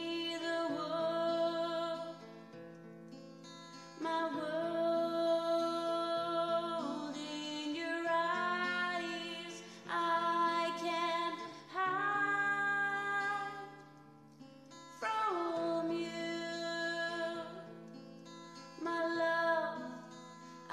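Song: a woman singing long held notes over acoustic guitar.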